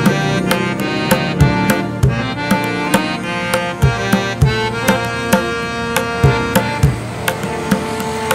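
Background music: a steady hand-drum rhythm under a sustained melodic instrument.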